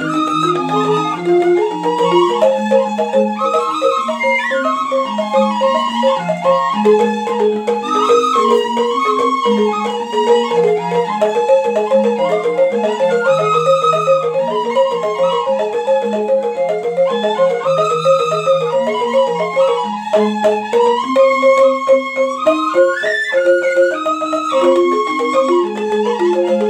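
Balinese gamelan rindik ensemble playing: bamboo rindik xylophones struck with mallets in a fast, busy pattern of repeated notes over slower low notes, with bamboo suling flutes holding long, sliding melody notes above, in slendro tuning.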